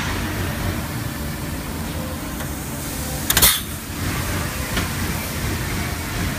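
Steady low background rumble, with one brief sharp clatter a little over three seconds in and a faint tick later as the sheet-metal frame is handled.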